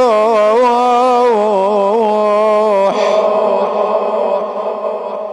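A man's voice chanting a long, wavering melismatic note of an Iraqi Shia elegy (nai), ending about three seconds in. A steady ringing sound lingers after it and fades out.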